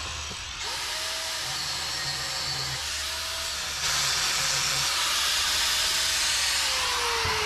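Corded angle grinder cutting through steel bracing, a steady grinding hiss that gets louder about four seconds in as the disc bites harder. The motor's whine dips and recovers under load, then falls steadily in pitch near the end.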